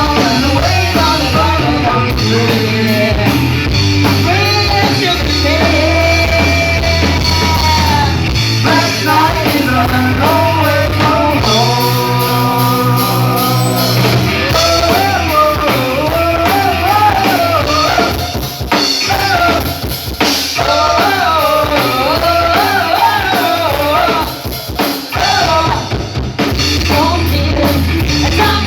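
Live rock band playing with a singer over drum kit and guitar; about twelve seconds in, the band holds one chord for a couple of seconds before the singing resumes.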